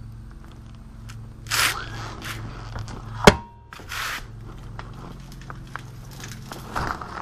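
Motorcycle engine idling steadily, with a few brief bursts of rustling and scraping close to the microphone. A single sharp click a little over three seconds in is the loudest sound.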